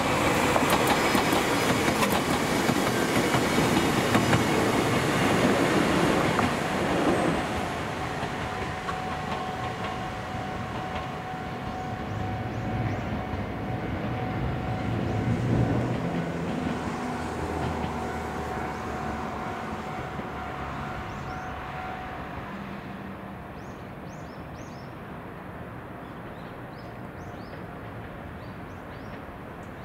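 A two-car electric train, a Gakunan Railway 9000 series (ex-Keio 5000 series), passes close by with its wheels clattering over the rail joints, then runs off into the distance and fades. Birds chirp faintly near the end.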